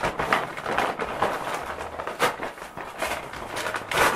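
Brown paper carrier bag crinkling and rustling in irregular bursts as clothes are pulled out of it, with a louder crackle near the end.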